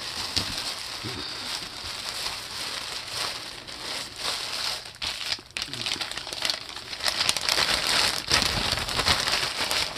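Plastic bag crinkling and rustling as a bundle of ribbons and lace is stuffed into it, a continuous crackly rattling that grows louder in the last few seconds.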